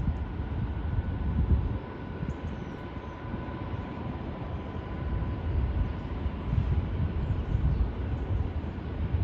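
An intermodal freight train rolls past on its container wagons. The low rumble of wheels on rail swells and eases in pulses, and a faint steady whine runs over it.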